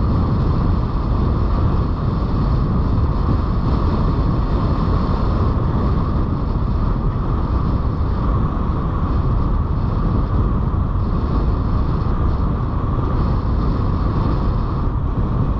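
Steady rush of airflow and wind buffeting on the microphone of a hang glider flying under tow, unbroken throughout.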